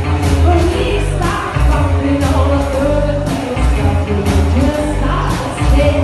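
Live rock and roll band playing: a woman singing over upright double bass and drums, with cymbal and snare hits keeping a steady beat.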